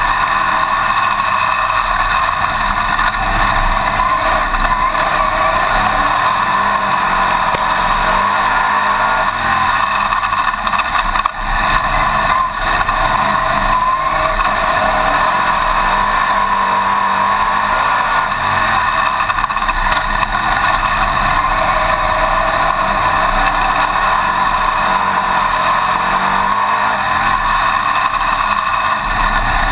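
Winged dirt-track modified race car's engine running hard at racing speed, heard from inside the open cockpit; a loud, continuous drone whose pitch rises and falls a little as the car goes round the track.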